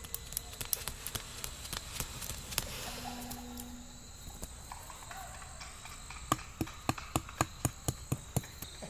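Crickets chirring steadily, with scattered sharp clicks. About six seconds in comes a quick, even run of about ten sharp knocks, roughly four a second: a nail being hammered into the ground.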